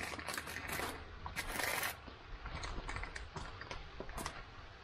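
A spoon stirring a rehydrating freeze-dried meal inside its foil pouch: quick, irregular scrapes and crinkles of the packet, with one louder rasping scrape about a second and a half in that lasts about half a second.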